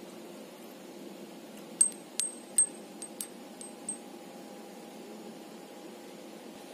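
Small steel CO2 capsules hanging on strings from a target stand clinking together, about seven sharp ringing clinks over two seconds, the first ones loudest and the rest fading, over a steady rush of wind.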